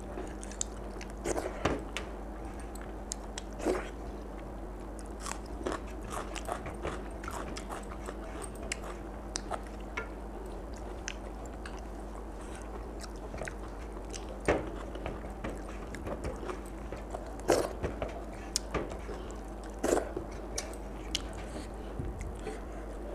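Someone eating rice and chicken feet curry by hand: chewing and small crunches, with scattered irregular taps and scrapes of fingers and food on a steel plate, the loudest about 14, 17 and 20 seconds in. A faint steady hum runs underneath.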